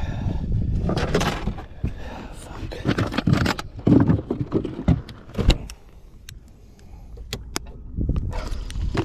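Irregular knocking, rattling and rustling of fishing gear being handled aboard a small boat, with a few sharp clicks in a quieter stretch about two-thirds of the way through, over a steady low rumble.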